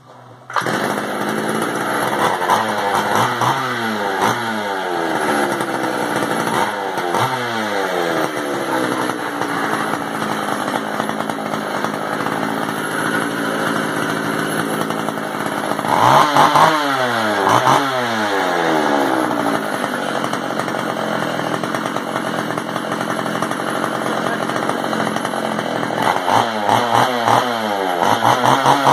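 Pioneer P40 two-stroke chainsaw catching about half a second in and running on its freshly rebuilt carburetor, the throttle blipped again and again so the engine revs up and falls back, with the hardest revving near the middle and near the end.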